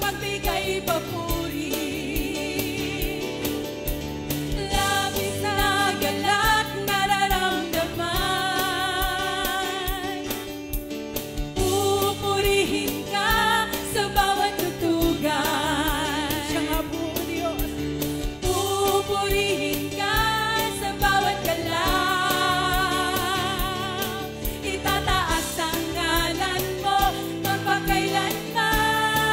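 Live worship band: two women singing a Tagalog praise song, the lead voice with a wavering vibrato on held notes, over keyboard and acoustic guitar.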